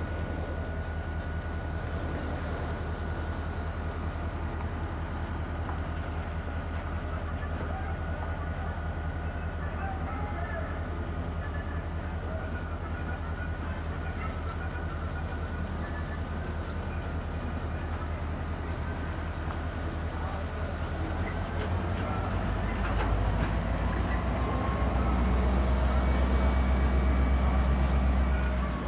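Diesel-electric locomotive engine idling with a steady low rumble and a high whine. About two-thirds of the way in it throttles up: the whine rises in pitch and the engine grows louder, easing off again right at the end.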